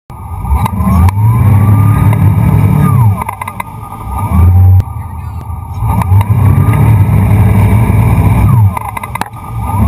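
Towboat's engine revving up under load to pull a wakeboarder, then dropping off, twice. It throttles back as the rider falls into the wake.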